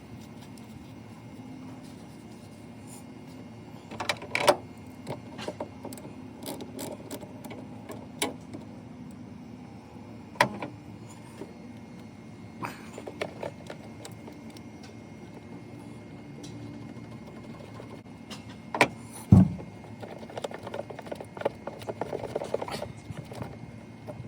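Scattered clicks and knocks of hands working at a car battery's terminals with a wet baking-soda napkin, one loud thump about three-quarters of the way through, then a stretch of rubbing near the end. A steady low hum runs underneath.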